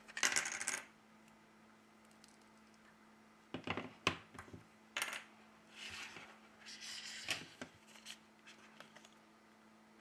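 A smartphone and its detached glass back cover being handled on a hard tabletop. A short scraping rush at the start is followed a few seconds in by several sharp clicks and taps of glass and plastic on the table, then more scraping and light taps.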